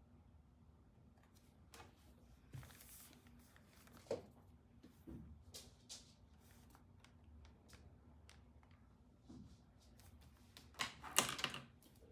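Scattered taps, clicks and rustles of desk work, with a louder burst of rapid clattering near the end.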